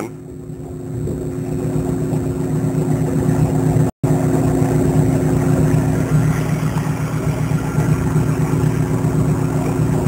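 Steady mechanical hum of running rooftop refrigeration equipment, a condensing unit's compressor and fan. It swells over the first few seconds and cuts out for an instant about four seconds in.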